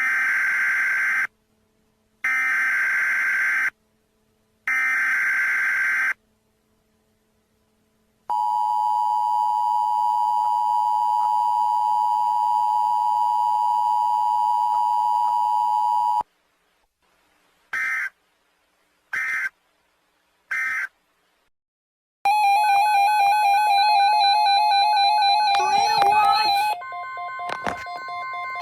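Emergency Alert System signals for a tornado watch. Three screechy digital header bursts, each about a second and a half long, are followed by the steady two-tone attention signal for about eight seconds. Three short end-of-message bursts come next, and in the last few seconds a warbling electronic tone that shifts in pitch.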